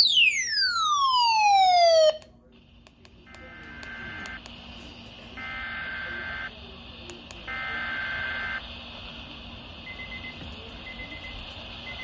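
Electronic alarm tones from a weather alert radio: a loud falling sweep for about two seconds, then after a short break a beeping alarm in pulses about a second long, which turn into shorter, quicker beeps near the end.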